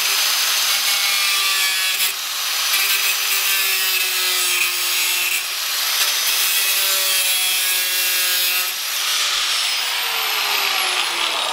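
Angle grinder with a thin cutting disc running and cutting into the perforated sheet-metal panel of a glycol chiller, trimming back a cut-out: a steady high whine over a harsh grinding hiss, with a brief dip about two seconds in. Near the end the grinder is lifted off and the whine falls as the disc spins down.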